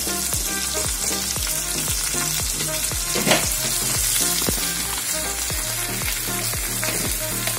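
Drumstick pieces, shallots and garlic sizzling in hot oil in an aluminium kadai, with a brief knock about three seconds in.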